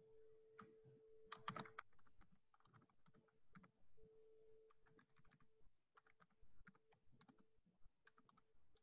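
Faint computer keyboard typing: irregular clicks, with a quick run of keystrokes a little over a second in. Beneath it is a low steady hum that keeps cutting out and coming back.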